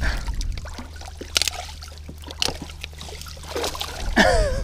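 Boat's outboard motor running low and steady under wet splashing and rustling as a hooked bass is worked out of a thick weed mat, with a few sharp knocks. A short grunting voice sound comes near the end.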